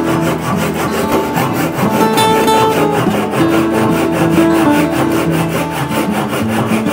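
Hand saw cutting across oak in rapid, even back-and-forth strokes, with acoustic guitar music playing over it.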